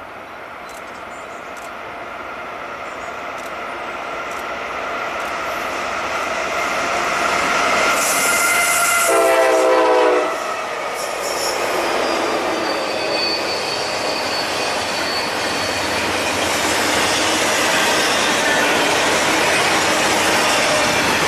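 Norfolk Southern intermodal freight train approaching and passing. The GE and EMD SD70ACe diesel locomotives grow steadily louder to a peak as they go by, with a brief horn blast about nine seconds in. Then comes the steady rolling noise of double-stack container cars, with a thin high wheel squeal for a few seconds.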